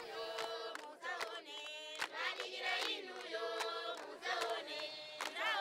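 A group of high voices singing together in chorus, with a few sharp taps scattered through it.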